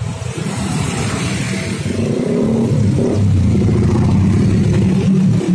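Engine of a motor vehicle passing close by, growing louder over the first two seconds and holding loud before falling away at the end.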